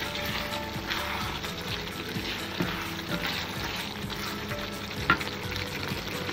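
Curry of cooked potatoes and tomatoes sizzling in a pan as it is stirred with a wooden spoon, with scattered scrapes and taps of the spoon on the pan and a sharper knock at the end.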